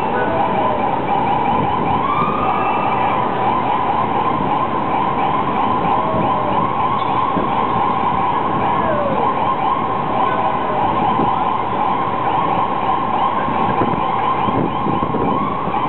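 Ambulance siren sounding without a break at a steady high pitch, over the noise of congested traffic.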